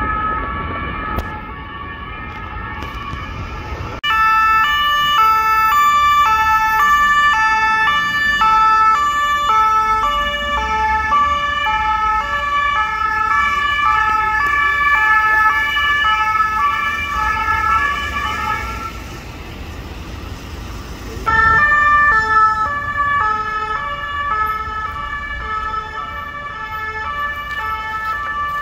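French police cars' two-tone sirens, each alternating between two notes about twice a second. Several sirens overlap, one much closer and louder from about four seconds in. They fade briefly, then a loud siren comes back suddenly a couple of seconds later, over the rumble of city traffic.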